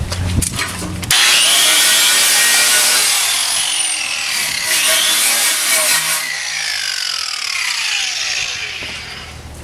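Corded electric drill boring into the steel of a tractor loader bucket: starts about a second in with a loud high-pitched grinding screech and gliding squealing tones from the bit cutting metal, easing off near the end.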